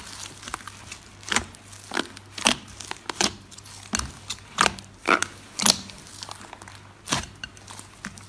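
Slime being worked by hand, giving a string of irregular sharp crackling pops.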